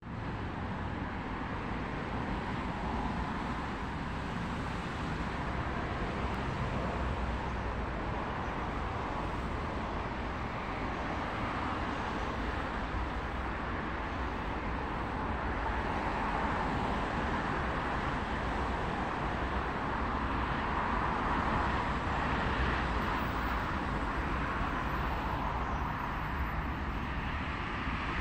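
Steady road traffic noise, swelling a little as vehicles pass around the middle and toward the end.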